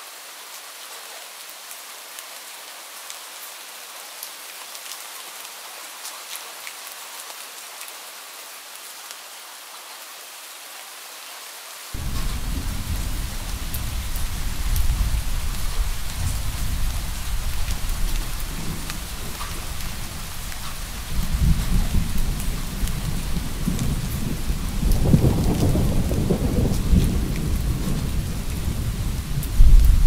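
Steady rain falling, with low thunder rumbling in suddenly about twelve seconds in and swelling louder a couple of times toward the end.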